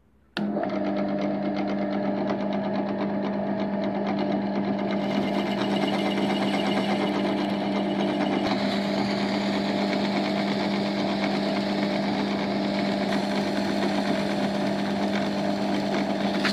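Bench pillar drill switched on about half a second in, its motor running with a steady hum. The hiss of abrasive mesh and paper rubbing on an old steel piano screw spinning in its chuck grows louder from about five seconds in, as the screw is polished.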